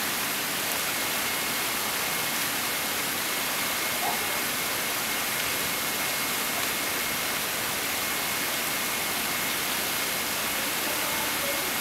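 Steady rushing hiss of pool water, with a faint steady high whine over it.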